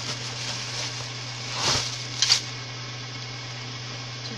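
Plastic bag rustling and cardboard box scraping as an LED ring light in its plastic wrapping is lifted out of its box. There is a swell of rustling a little under two seconds in and two sharp clicks just after, over a steady low hum.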